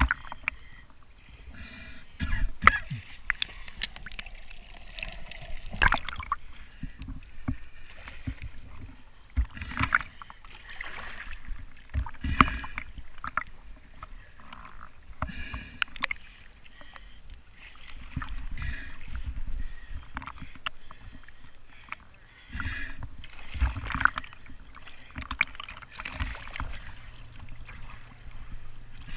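Water splashing and sloshing around a camera held at the waterline, dipping in and out of the surface, as a scuba diver swims on the surface. It comes as irregular splashes and clicks.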